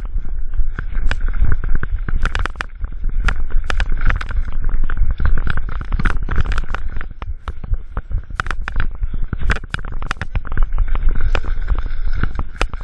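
Mountain bike rolling down a rough dirt trail: tyres rumbling on the ground, with frequent sharp rattles and knocks from the bike and camera over bumps.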